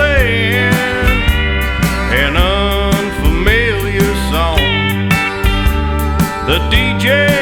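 Country music in an instrumental stretch: a steel guitar plays gliding, bending lines over bass and a steady drum beat.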